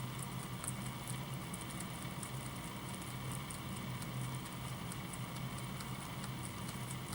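Rabbit chewing hay: rapid, irregular crisp crunching clicks, over a steady low hum.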